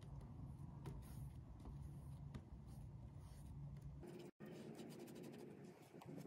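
Faint, scratchy rubbing of a bristle brush scrubbing gouache back and forth on textured watercolour paper, over a low room hum, with a brief cut-out about four seconds in.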